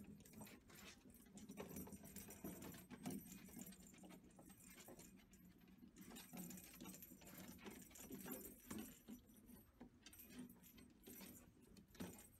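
Faint sounds of micro piglets moving about on a plywood floor: light clicks and scuffs of their hooves and soft low grunts. There is also a jingling rattle as they nose a small lattice toy ball.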